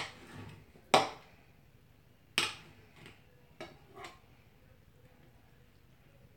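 Kitchen knife knocking against a plate while slicing raw boneless, skinless chicken breasts: a few sharp clinks, each ringing briefly, the loudest two about one and two and a half seconds in, then softer taps.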